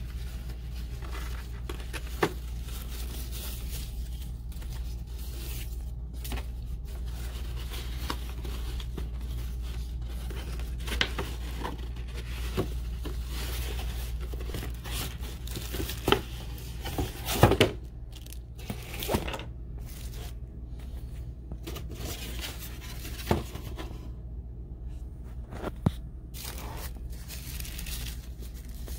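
Paper and cardboard gift packaging being handled and unwrapped: a box, ribbon and tissue paper rustling, scraping and crinkling, with several sharp clicks and knocks, the loudest a cluster a little past halfway.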